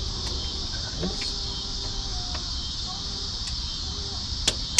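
Steady high-pitched chorus of insects trilling, with a few faint ticks and one sharp click near the end.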